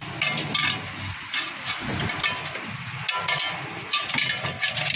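Irregular metallic clinks and knocks of the Maruti Suzuki Eeco's metal coolant pipe assembly being handled and fitted into place under the van.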